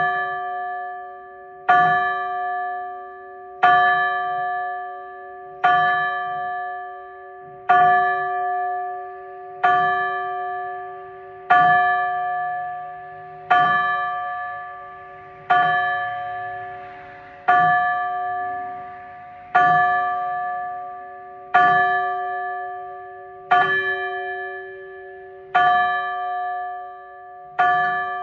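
Church bell tolling slowly, one stroke about every two seconds, each ringing out and fading before the next. It is a memorial toll, one stroke for each year of a life.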